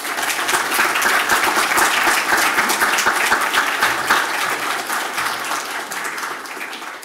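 Audience applauding: many hands clapping in a dense patter that starts at full strength and slowly dies down near the end.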